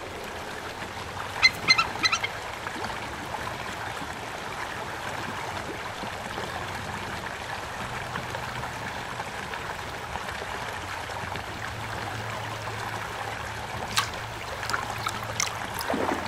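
Steady rush of a river, with a bird calling four or five times in quick succession about one and a half seconds in. A few short, sharp clicks sound near the end.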